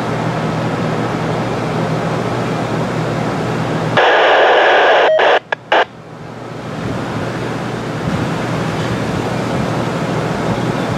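A radio scanner cuts in with a burst of static about four seconds in, lasting about two seconds and ending in a few quick crackles. Under it is the steady low rumble of an idling diesel locomotive.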